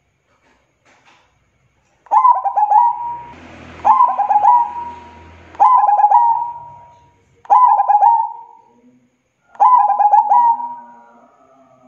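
Zebra dove (perkutut) cooing: after about two seconds of quiet, five stuttering coo phrases come roughly every two seconds, each opening with quick broken notes and ending in a held tone.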